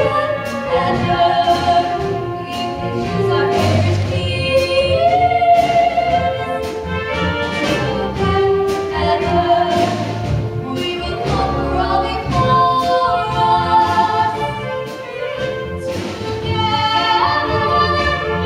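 Musical-theatre song: several voices singing together over instrumental accompaniment with a steady beat.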